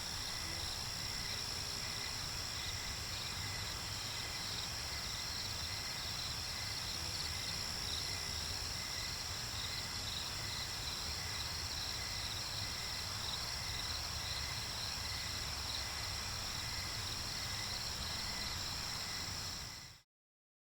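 Steady insect chorus: a constant high drone with a faint, evenly pulsing chirping under it and a low rumble, fading out near the end.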